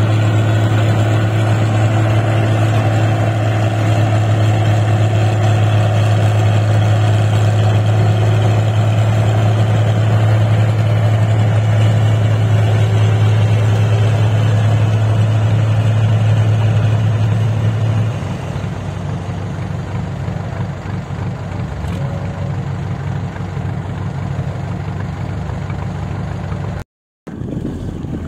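A New Holland combine harvester's diesel engine running steadily with a strong low drone. About two-thirds of the way through, the drone drops away and the engine sounds lower and rougher. A brief cut-out near the end is followed by a quieter engine sound.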